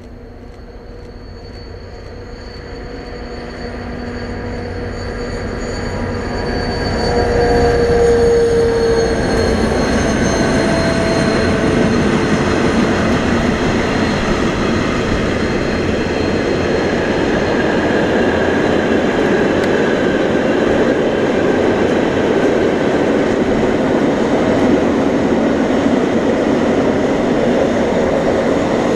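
DB class 232 'Ludmilla' diesel locomotive approaching and passing, its engine sound growing louder for about eight seconds and its tones dropping in pitch as it goes by. Then the train's wagons roll past with a steady, loud rumble of wheels on rails.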